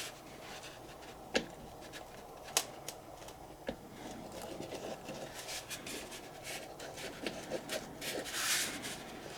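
A hand tool scoring the hard dried shell of a gourd. A few sharp clicks come first, then a run of quick scratching rubs from about four seconds in, as the tool bites into the shell.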